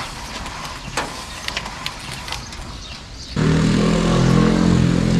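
Light clicks and handling noise, then about three seconds in a loud, steady motor drone starts suddenly.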